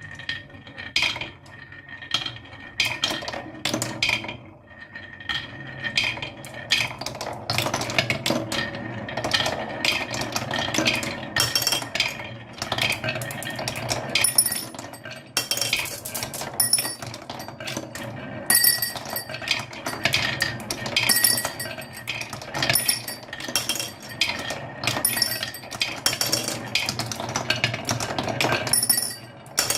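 Many marbles rolling and clattering down a wooden marble run. A steady rolling rumble runs under dense clicks and clinks as they knock against the track and each other, with short ringing tones here and there.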